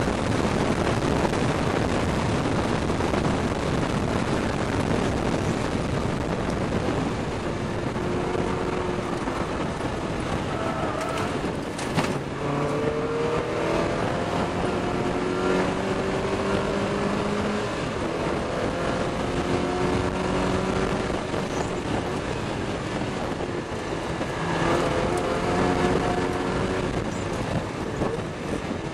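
Lotus Elise S1 111S's 1.8 Rover K-series VVC engine heard from inside the open cabin at track speed, under heavy wind and road noise. The engine note rises in pitch under acceleration and drops away several times as the driver lifts and changes gear, with a single sharp knock about twelve seconds in.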